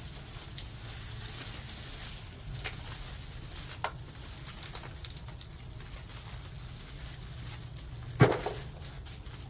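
Digging in garden soil to unearth turmeric rhizomes: a few scattered scrapes and knocks over a low steady background hum, the loudest knock about eight seconds in.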